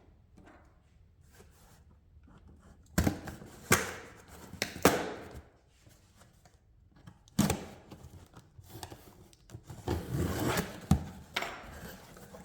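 Packaging being opened and parts handled: several sharp knocks and thumps, then rustling and tearing of packing material near the end.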